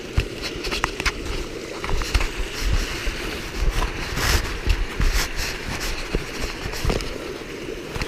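Steady rush of a rain-swollen waterfall and stream, with scattered clicks and knocks from steps and handling on rock. Low rumbling bumps on the microphone come and go between about two and five seconds in.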